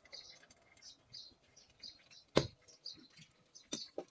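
Small birds chirping quickly and steadily in the background, with one sharp knock a little past halfway through and a fainter one near the end.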